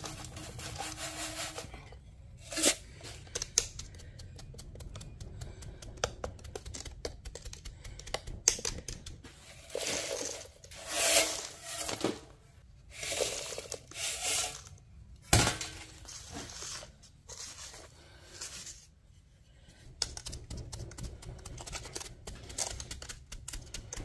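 Irregular scraping, tapping and sharp clicks of hand work on a furnace's refractory lining, with several short louder scrapes in the middle.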